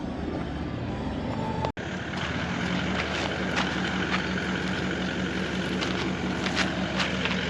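Steady drone of a vehicle engine with a low, even hum, broken by a brief dropout about two seconds in; a few sharp clicks.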